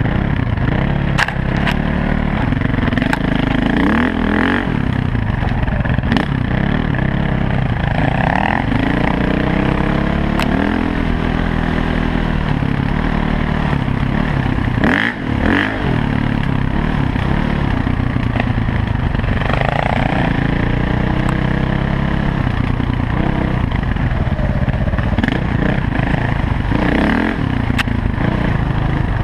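Dirt bike engine running hard on a rough trail, its pitch rising and falling again and again with the throttle, briefly easing off about fifteen seconds in. Scattered knocks and rattles come from the bike going over bumps.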